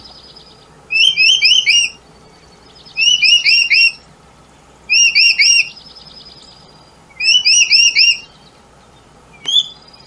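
Caged songbird chirping in four bursts of four or five quick falling chirps, about two seconds apart, with a faint trill between bursts and a single short chirp near the end.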